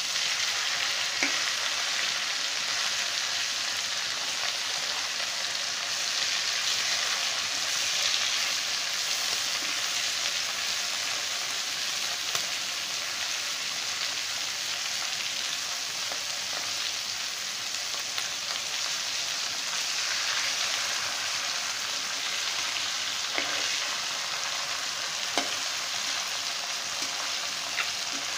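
Turmeric-coated fish pieces sizzling steadily as they fry in hot oil in a pan, with a few light clicks from stirring.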